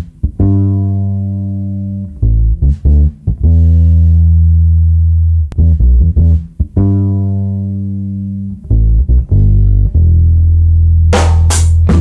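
Electric bass guitar alone, playing a funk riff of held low notes and short stabs, with the phrase played twice. The full band comes in near the end.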